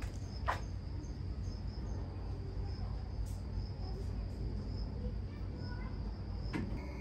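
Insects chirping steadily in a high, even trill, over a low outdoor rumble, with two sharp clicks about half a second in and near the end.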